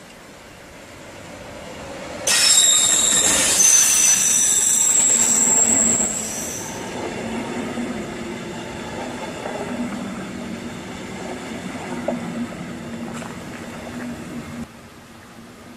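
Siemens Taurus electric locomotive hauling a double-deck regional train past: a sudden loud rush about two seconds in with high wheel squeal for several seconds, then the coaches rolling by with a steady rumble that cuts off near the end.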